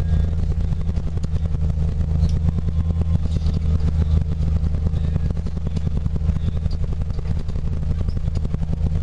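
Snowcat's diesel engine running steadily under way, a low drone with a rapid clatter running through it.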